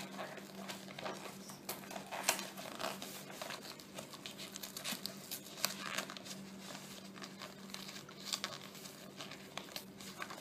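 Plastic shrink-wrap on a CD album being torn open and crumpled by hand: irregular crinkling and crackling, with a faint steady hum underneath.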